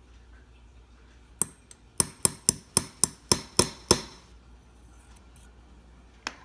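Light hammer taps on a steel concave punch set over a watch hairspring collet on a flat stump: about nine sharp metallic clicks with short ringing, roughly four a second, closing the collet so it grips the new balance staff more tightly.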